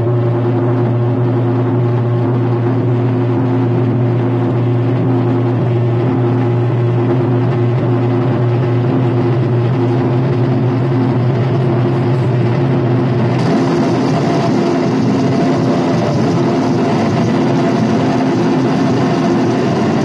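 Noise-music drone from a live experimental performance: a steady low hum with a few held tones under a rough wash of noise, which turns brighter and harsher about two-thirds of the way through.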